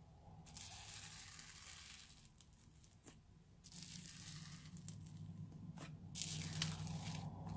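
Fingers pressing and poking into old slime full of air pockets, making crackling sounds in three bursts.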